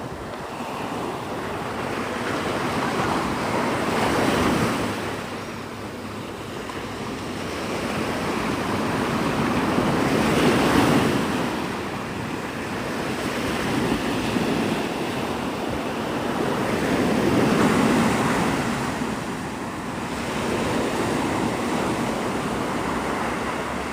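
Gulf surf breaking and washing up the beach, the rush of water swelling and fading about every six to seven seconds.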